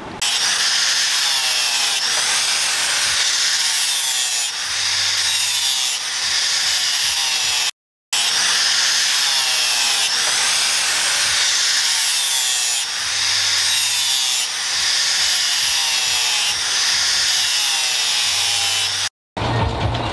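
Handheld angle grinder with a flap disc grinding a steel sword blade. A steady high grinding hiss whose pitch dips and rises as the disc bears on the steel. It cuts off abruptly for a moment about a third of the way in and again just before the end.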